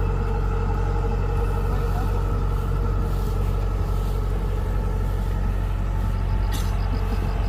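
Kubota DC-105X combine harvester running steadily: a constant engine drone with a steady hum over it, without change in speed.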